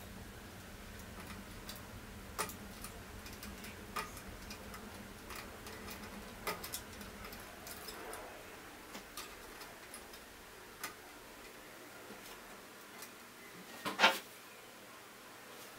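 Irregular small clicks and taps of a wiring harness and plastic connectors being handled inside an embroidery machine's open housing, with one louder clack near the end.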